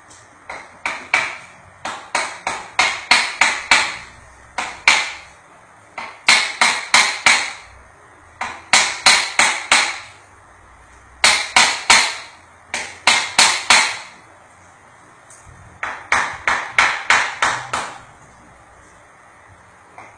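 Quick series of sharp, ringing taps, about four to five a second in clusters of five to nine, with short pauses between clusters: a traditional bone-setter striking at a patient's leg with a small hand-held implement.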